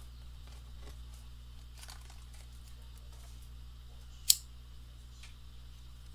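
Bald eagle working nest material, with faint rustling and crackling of dry grass and sticks and one sharp snap about four seconds in, over a steady low hum.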